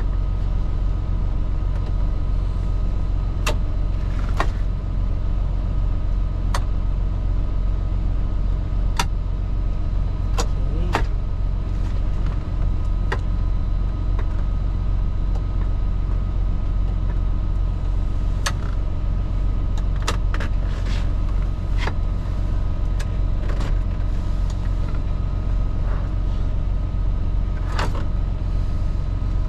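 Semi truck's diesel engine idling with a steady low rumble, a faint steady whine above it. Scattered clicks and knocks of things being handled and taken apart come over it.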